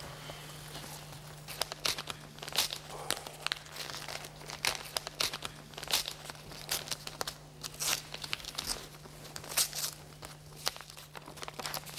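A sealed paper envelope being opened and the sheet inside unfolded, heard as irregular paper rustling and crinkling throughout, over a faint steady hum.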